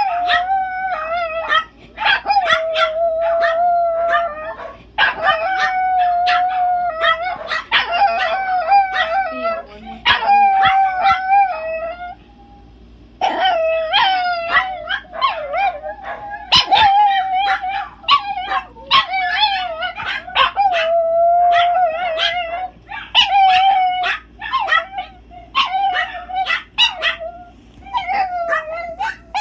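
Chihuahua howling over and over: drawn-out, slightly wavering howls broken by short yips, with a pause of about a second around the middle.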